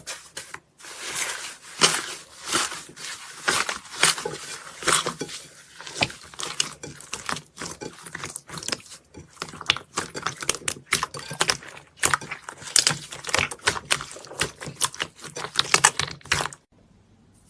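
Slime being squeezed and kneaded by hand, a rapid, continuous run of sticky crackles and pops that stops abruptly near the end.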